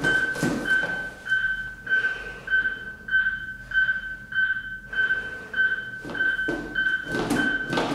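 An AED (automated external defibrillator) trainer gives a steady metronome beep, just under two beeps a second, pacing CPR chest compressions on a training manikin. Between the beeps come rustling and shuffling sounds of someone moving over the manikin, loudest about a second before the end.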